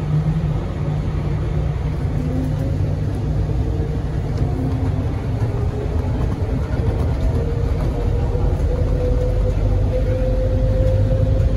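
Bombardier Innovia APM 100 people-mover car running along its concrete guideway, heard from on board: a steady low rumble from its rubber tyres, with a whine that slowly rises in pitch as the train picks up speed.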